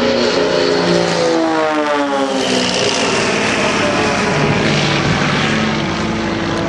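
Aerobatic display plane's piston engine and propeller passing by, the pitch sliding down over the first few seconds as it goes past. After that it settles into a steady, lower drone.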